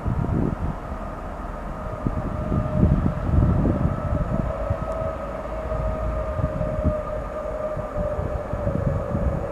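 Sm5 (Stadler FLIRT) electric commuter train approaching and arriving at the station, its drive giving a steady electric whine over irregular low rumbling.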